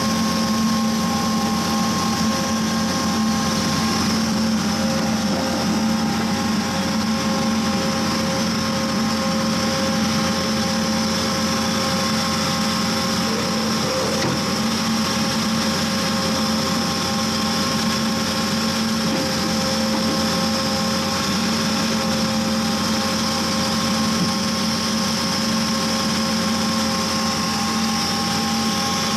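Horizontal directional drill rig running steadily: an unchanging engine and hydraulic drone with a few constant whining tones.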